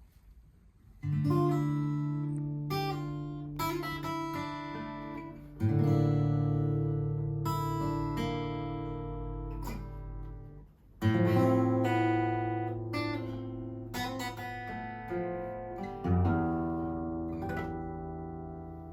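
All-solid-wood Ayers acoustic guitar with a spruce top and koa back and sides, played as a slow sequence of four full chords, each left to ring out and decay, with single plucked notes picked between them.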